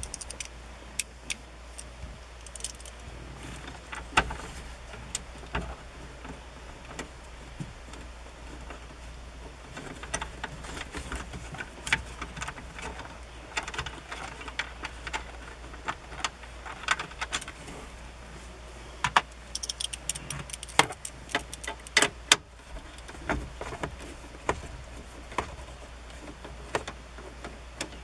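Irregular small clicks, rattles and metallic clinks of a hand tool working the screws of a pickup's instrument cluster and its plastic dash trim, coming in bunches through the middle of the stretch.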